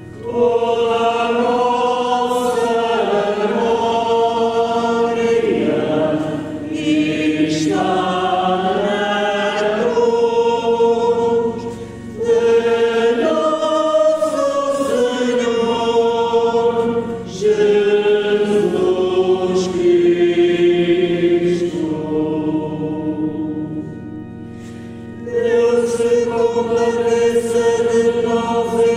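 A choir singing a slow sacred song in long held phrases, with short pauses between the phrases.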